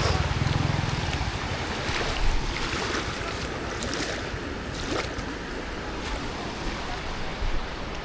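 Sea waves washing onto the shore in a steady rush, with wind buffeting the microphone, strongest in the first second.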